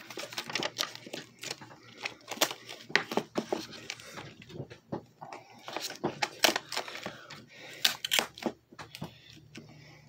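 A duct-taped plastic power strip handled right at the microphone: irregular crinkling and rustling of the tape with small clicks and knocks of the plastic.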